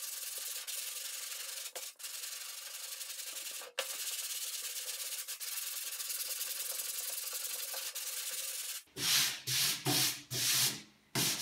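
Body filler on a car front fender being sanded with a long sanding board: a steady rasping hiss with a couple of brief breaks. About nine seconds in it changes to louder, separate back-and-forth strokes of sandpaper held in the hand.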